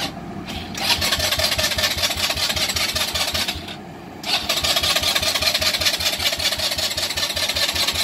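Electric starter cranking the 2018 Polaris Phoenix 200 ATV's single-cylinder engine in two attempts, the first about three seconds long, the second starting about four seconds in. The engine never catches: it cranks but won't start, a fault the dealer later traced to the carburetor's main needle clip being set on the wrong position.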